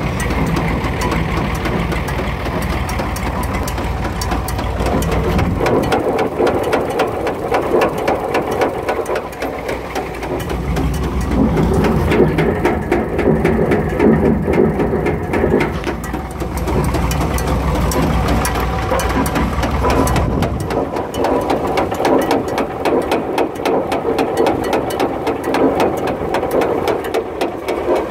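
PTO-driven straw chopper running with its rotor spinning, together with the tractor engine that drives it: a steady, loud mechanical running sound with a rapid even beat, its deep rumble fading and returning a couple of times.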